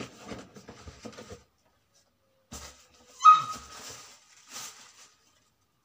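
Wrapping paper rustling and crackling as it is torn off a gift box, with a sudden short high-pitched squeal about three seconds in, the loudest sound, then more rustling.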